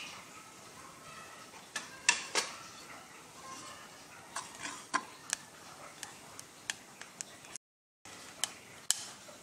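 Scattered, irregular sharp clicks and ticks from a hot pressure-cooker pot with panch phoron seeds toasting in it and a spoon adding mustard oil. The sound cuts out completely for a moment near the end.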